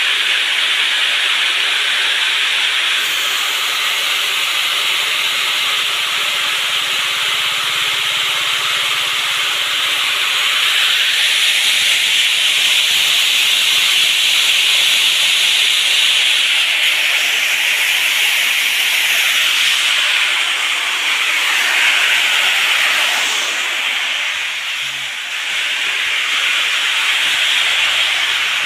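Soybeans streaming down the galvanized sheet-metal chutes of a spiral seed separator as they are graded: a steady hiss of grain sliding over metal, dipping briefly near the end.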